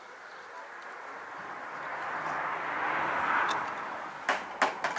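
A rushing noise that swells to a peak about three seconds in and then fades, followed by three sharp clicks near the end.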